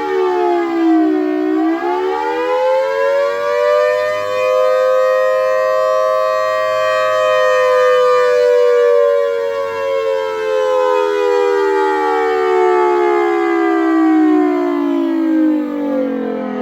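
3D-printed miniature Thunderbolt siren running at high rotor speed and sounding two close tones. Its pitch dips about a second and a half in, winds up to a peak, then slowly winds down through the rest. Really loud.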